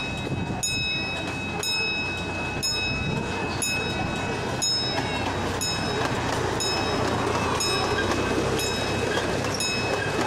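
Miniature amusement-park train, with a steam-locomotive-style engine, pulling out and rolling past on its narrow track, its running noise growing louder as it nears. A bell rings about once a second throughout.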